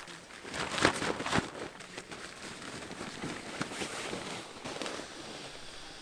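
Air mattress fabric rustling and crinkling as it is handled, loudest about a second in, then a softer, even rustle.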